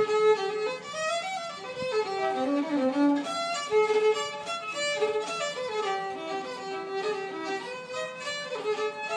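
Solo fiddle bowed, playing a tune that moves through held notes and quicker runs without a break.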